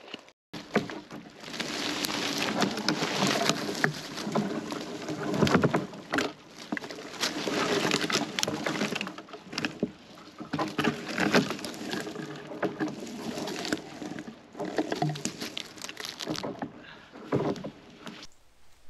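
Dry spruce twigs and branches crackling and snapping, with rustling footsteps through the needle litter of the forest floor. The sound is uneven, full of sharp snaps, and starts about half a second in.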